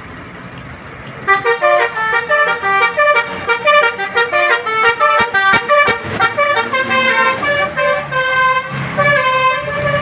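Bus "telolet" horn, the multi-tone melodic air horn of a Hino bus, playing a fast tune of rapidly changing notes. It starts about a second in, over the low rumble of the bus's engine.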